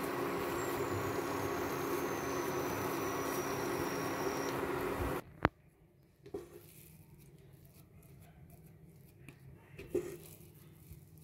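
Steady hum of an induction cooktop and its cooling fan running, with a faint falling whine. The hum cuts off abruptly about five seconds in, followed by a sharp click. After that come faint scrapes and a few light taps of a silicone spatula working a thick sweet mixture in a nonstick pan.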